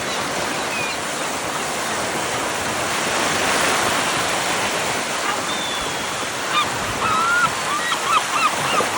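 North Sea surf breaking and washing in a steady rush that swells around the middle. In the last third a bird calls over it, a quick series of short, bending cries.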